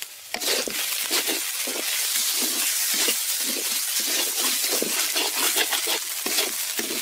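A wooden spatula stirring and scraping a fish and spice mixture around a metal kadai, in strokes about twice a second over a steady frying sizzle. The stirring starts just after the opening moment.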